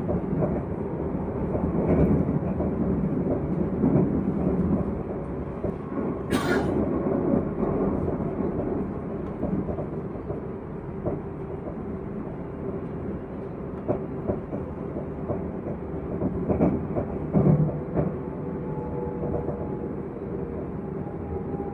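SNCF Z50000 (Francilien) electric multiple unit heard from inside while running: a steady rumble with scattered clacks and rattles, and a faint steady whine underneath. A sharp click stands out about six seconds in.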